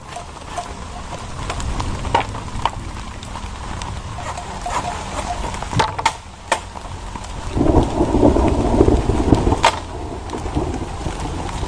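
Heavy rain falling with a steady low rumble under it and scattered sharp drips and knocks. About two thirds of the way in, the rain swells into a louder rush for around two seconds.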